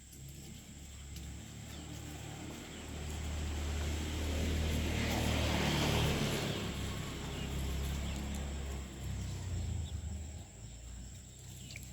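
A motor vehicle passing by: a low engine hum with road noise that swells to a peak around the middle and then fades.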